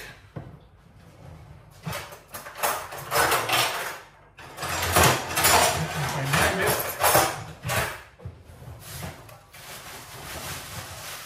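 Wire whisk clattering and scraping in a pan of liquid sauce, in uneven bursts of quick strokes.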